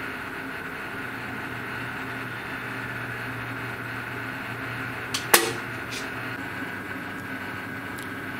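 Steady hum of a powered-up CNC router setup at rest, with one sharp click a little over five seconds in and two fainter clicks around it.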